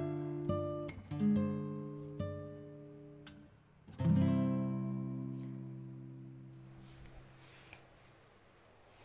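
Background music: acoustic guitar chords plucked several times in quick succession, then one chord struck about four seconds in and left ringing until it fades away.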